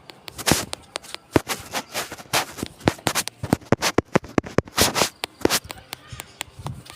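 Irregular crackling and scratching, a dense run of sharp clicks and short scrapes at an uneven pace, with no steady rhythm.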